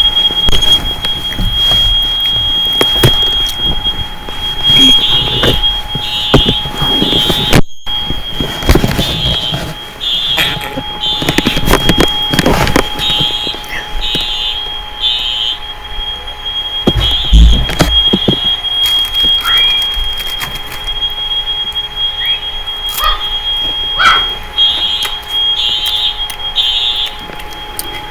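Building fire alarm sounding: a steady high-pitched tone held throughout, with a second high tone beeping on and off a little more than once a second in repeated runs.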